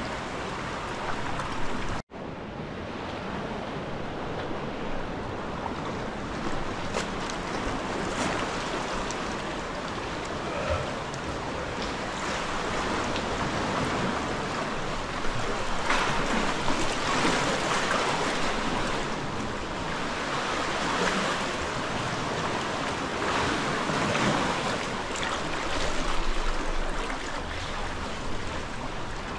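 Sea swell washing and splashing against rocky cliffs and lapping around a sea kayak, rising and falling in surges.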